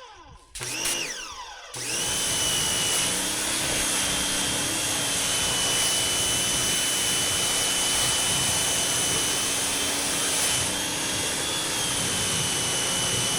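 Pressure washer's motor winding up and down in brief starts, then from about two seconds in running steadily with a high whine over a constant hiss.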